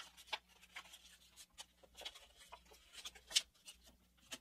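Sheet of paper being reverse-folded by hand through several thick layers: faint rustling and short crackles, with one sharper crinkle about three and a half seconds in.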